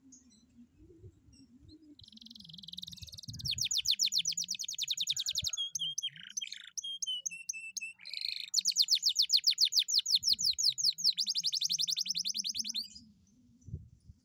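Domestic canary singing. About two seconds in it breaks into a high, very rapid rolling trill, then gives a few lower whistled notes. It follows with another long, fast trill that stops abruptly about a second before the end.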